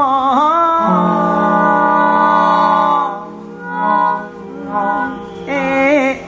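A cappella vocal group of mixed male and female voices singing in close harmony through stage microphones and PA. They hold a long chord for about two seconds, then drop to quieter, softer phrases.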